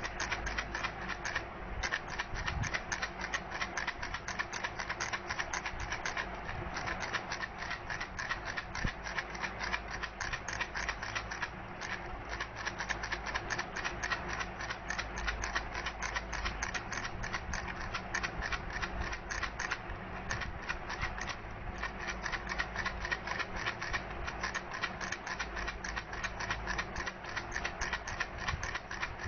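Baby rattle shaken steadily, giving a rapid, even stream of clicks and clatters that runs on without a break.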